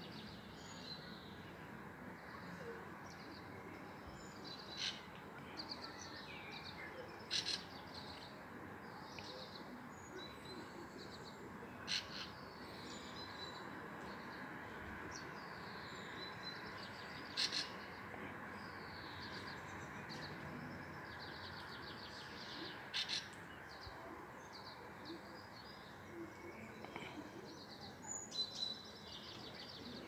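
Songbirds singing, with a louder sharp short phrase repeated every few seconds among many fainter chirps and trills, over a steady background hum.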